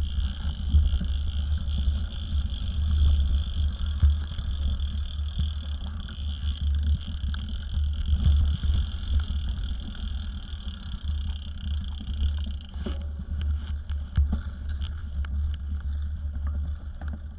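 Mountain bike riding over a dirt forest trail, heard through a handlebar-mounted camera: a steady low rumble of wind and tyre on dirt, with frequent rattles and knocks from bumps. A steady high hiss runs under it and stops suddenly about thirteen seconds in.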